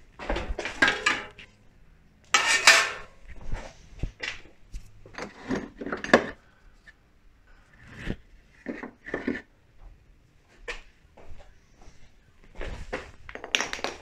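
Metal bicycle wheels and parts clattering and rattling as they are pulled from a tangled pile and rummaged through. The knocks and jangles come irregularly, and the loudest clatters fall within the first three seconds.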